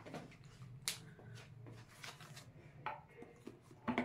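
Small objects being handled: a few sharp clicks and knocks, one about a second in, another near three seconds and a couple together near the end, over faint room noise.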